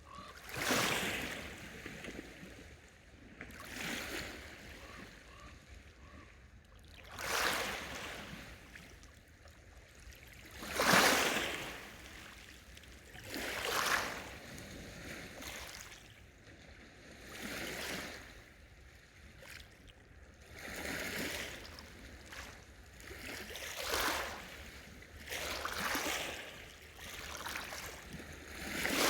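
Small waves washing onto the shore of a large freshwater lake, one coming in every two to four seconds, the biggest about eleven seconds in.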